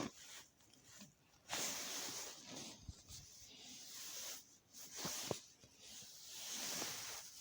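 Faint hissing, rustling noise in several bursts of about a second each, with a few soft clicks: a chicken being handled and dosed by syringe with baking-soda water.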